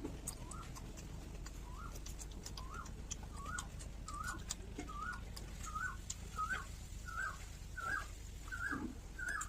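A bird calls a short note over and over, rising then falling, about once every two-thirds of a second and growing louder. Faint clicks and smacks of eating run underneath.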